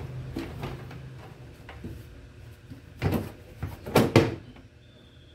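Handling of a plastic LCD TV back cover as it is fitted back on: a clatter about three seconds in, then two loud knocks about a second later.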